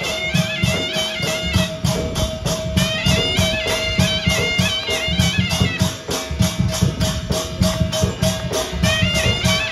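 Loud festival music: heavy drum beats and cymbal strikes keeping an even rhythm of about four a second, over a steady drone, with a high wavering melody line.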